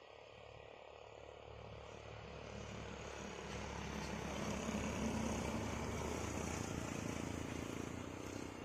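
Truck's diesel engine pulling uphill as it drives past. It drones louder as it approaches, is loudest about five seconds in, then fades away.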